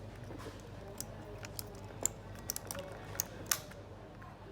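Keys of an A4Tech Bloody D800 mechanical keyboard being pressed in slow, irregular typing: scattered sharp clicks, two of them louder, about two and three and a half seconds in, over a faint steady low hum.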